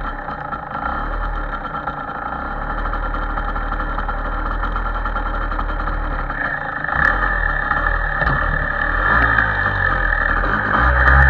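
MZ motorcycle engine idling, growing louder over the last few seconds.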